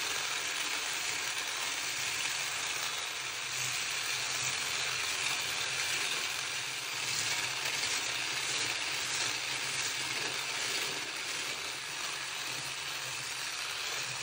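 Electric stick blender with a whisk attachment running steadily in a stainless steel bowl, whipping egg whites with sugar into a stiff meringue.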